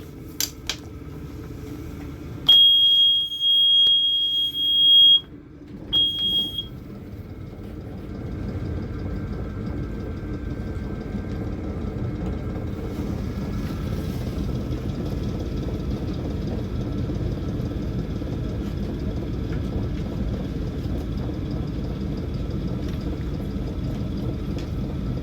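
Engine control panel alarm buzzer on a Yanmar 3JH2E sounds a steady high tone for about three seconds, then once more briefly. The three-cylinder marine diesel then starts and settles into a steady idle, with no intermittent beep heard from the panel.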